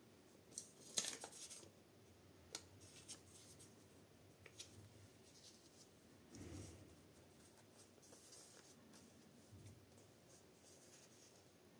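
Quiet tabletop handling of paper and a plastic glue bottle as glue is squeezed onto an old book page. A cluster of small clicks and rustles comes about a second in, followed by a few lighter ticks and a soft low thump around the middle.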